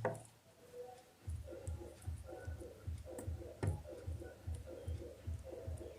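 Soft background music with a steady ticking beat, about four beats a second, and one sharp click about three and a half seconds in.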